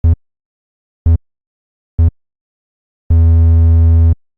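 Low buzzing synthesizer tone from FL Studio's 3x OSC plugin: three short blips about a second apart, then one held note lasting about a second. These are note previews sounding as notes are placed in the piano roll, building up a phone-vibration buzz.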